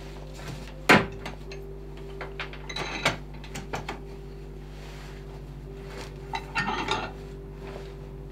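Knocks and metallic clinks of hand tools being handled on a wooden workbench around a cast-iron bench vise: one sharp knock about a second in, then scattered clinks in two clusters. A steady low hum runs underneath.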